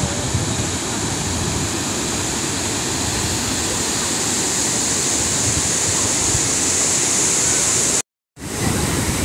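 Sea surf breaking on the beach: a steady, continuous wash of waves. The sound cuts out completely for a moment near the end.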